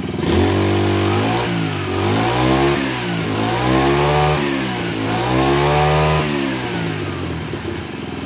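Honda GX25 four-stroke brush cutter engine revved up and back down four times, then dropping back to a steady idle near the end.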